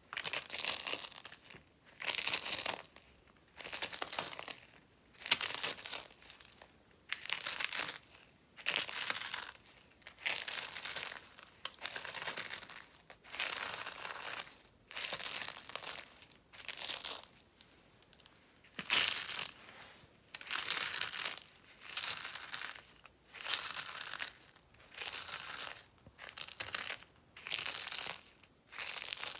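Dry soap being crushed, crunching and crackling in short crisp bursts about once a second.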